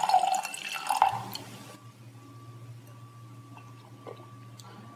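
Red wine pouring from a bottle into a stemmed tasting glass, splashing with two surges in the first second and a half. After that only a faint steady room hum remains.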